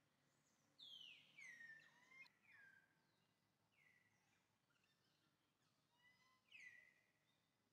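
Faint high-pitched animal calls, each sliding down in pitch and then levelling off, about five times over near silence.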